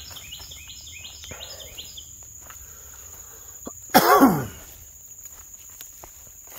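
Footsteps through brush and leaf litter under a steady high insect drone, with rapid repeated high chirps in the first two seconds. About four seconds in there is a short, loud cough-like vocal sound that falls in pitch.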